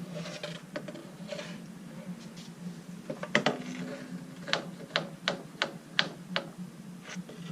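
Workshop hand-tool and handling noise: scattered knocks, then a run of sharp mechanical clicks about three a second.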